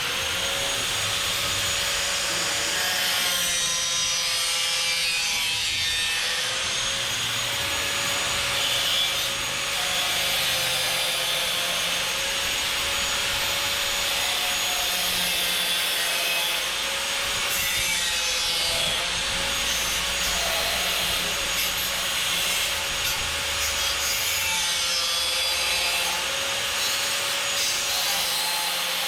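Angle grinder running continuously on steel, a steady scraping hiss over a slightly wavering motor whine.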